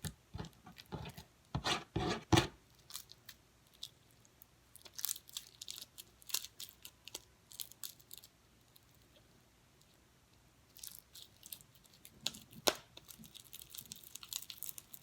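Slime with lotion mixed in being squeezed and stretched by hand, giving a run of short clicks and pops. They come thickest in the first couple of seconds, then stop for about two seconds past the middle before starting again.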